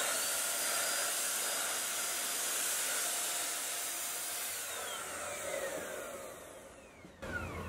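HomeRight Super Finish Max electric HVLP paint sprayer, fitted with the yellow air cap and red tip, running and spraying paint, with a steady rushing hiss of blown air. About four seconds in it fades, with a falling whine as the motor runs down, and it stops near the end.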